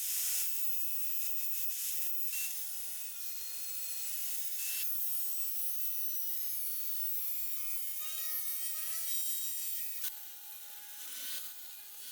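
Steady scraping and rubbing of a hand tool on wood, with faint thin squeaking tones running through it and brief breaks about five and ten seconds in.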